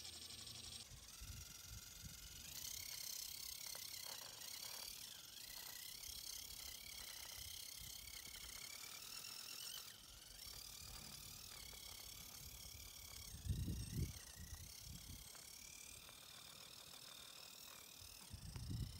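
Small RC crawler's brushless motor and drivetrain whining steadily as it climbs wooden planks, with two low knocks, one past the middle and one near the end, as the tires or chassis hit the wood.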